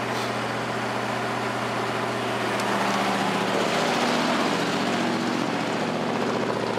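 Ford F-150 pickup engine running steadily at fast idle while warming up after a start, with a newly replaced brake booster check valve meant to cure a vacuum leak.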